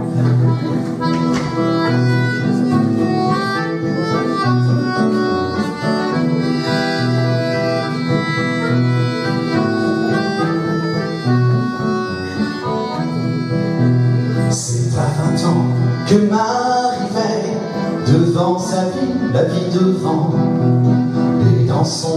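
A folk band playing live: a held, reedy melody over acoustic guitar and a low accompaniment, and then, from about two-thirds of the way through, a man's singing voice.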